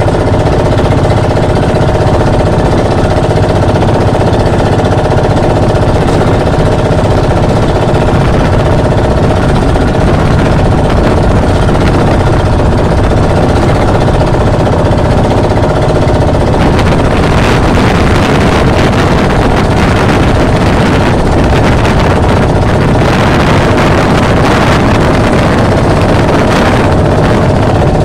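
Motorized outrigger boat's engine running loudly and steadily. From about halfway through, rushing water and wind noise on the microphone grow louder over the engine as the hull pushes through choppy waves.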